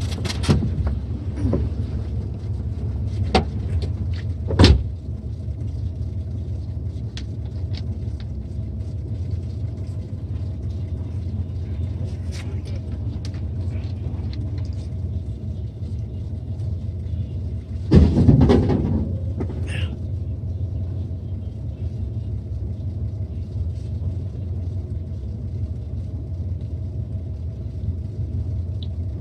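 Pickup truck's engine rumbling steadily. A sharp knock comes about five seconds in, and a louder clattering knock near eighteen seconds.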